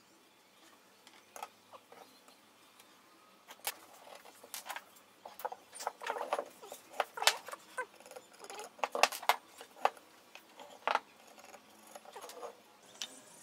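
Scattered light knocks, clicks and scraping of wood on wood, sparse at first and busiest in the middle: a small wooden jig and a board being handled, set against each other and moved on a wooden workbench while the joint is marked out in pencil.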